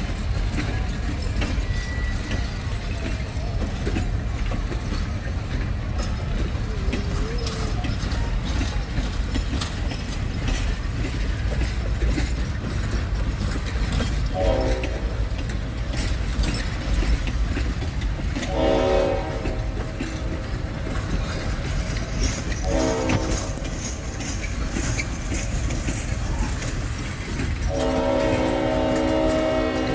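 Passenger train cars rolling past with a steady rumble and wheel clicks over the rail joints, while the new Great Smoky Mountains Railroad locomotive's horn sounds four blasts from about halfway in: short, long, short, then a long one still held at the end.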